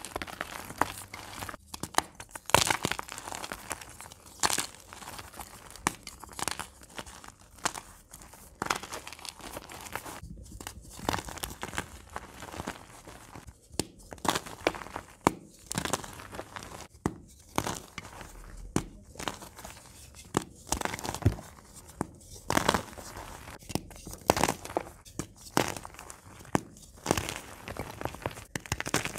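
Blocks of plain gym chalk crushed and crumbled between the hands, breaking into flakes and powder with irregular crisp crunches and crackles, some sharper and louder than others.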